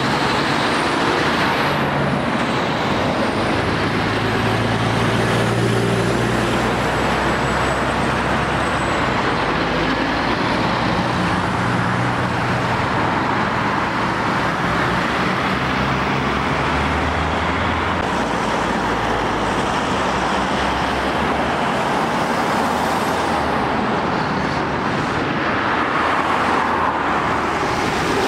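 Steady road traffic: heavy lorries, vans and cars passing close by, diesel engines running over continuous tyre noise, the engine note changing every few seconds as each vehicle goes past.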